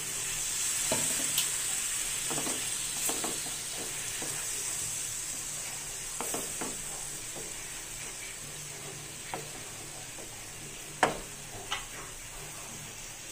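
Onion-tomato masala sizzling in a hot nonstick pan just after a splash of water has gone in, while a spatula stirs it with scattered scrapes and taps on the pan. The sizzle is strongest at the start and eases off as the water mixes in. A sharper tap about eleven seconds in is the loudest sound.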